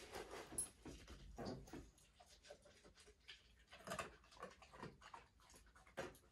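Faint, irregular small clicks and soft rustles of a dog taking and chewing treat rewards from the handler's hand.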